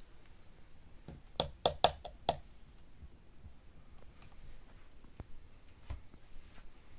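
Curtain moving along a pipe rod, pulled by fishing line from a near-silent stepper motor on a TMC2208 driver: a quick run of about five sharp clicks a second or so in, then scattered faint clicks, with little sound from the motor itself.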